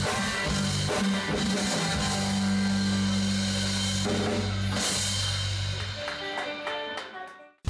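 Live rock band with drum kit and guitars playing. A long held low chord rings through the first five seconds or so, then thinner scattered notes fade away and the sound cuts off just before the end.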